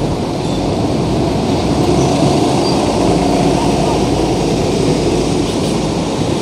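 A city bus's diesel engine and tyres drive past close by and pull away, a heavy steady rumble that swells slightly about two seconds in, with busy road traffic underneath.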